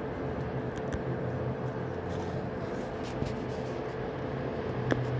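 A steady low hum, with a few faint taps and scratches from a stylus writing on a phone's touchscreen.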